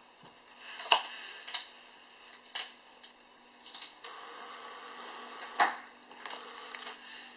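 LEGO Mindstorms NXT label dispenser at work: its plastic LEGO mechanism clicks and clacks as it feeds the label tape. The sharpest clacks come about a second in and about five and a half seconds in, and a steady running noise lasts for about two seconds in the middle.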